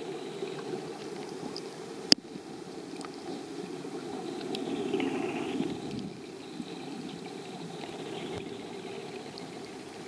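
Muffled underwater water noise picked up by a camera in its waterproof housing, a steady low rush that swells for a couple of seconds around the middle. A single sharp click about two seconds in is the loudest sound.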